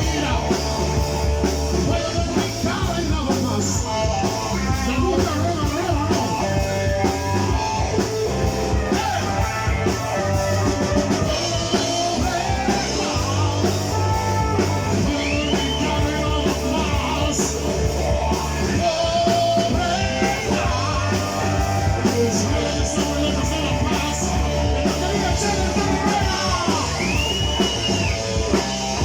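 A blues-rock band playing at full volume with drums, bass, guitar and a singer.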